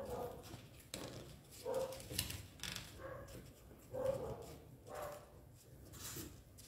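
A folded sheet of paper rustling and crinkling as hands press and shape a paper boat. About four short whine-like sounds come in over it.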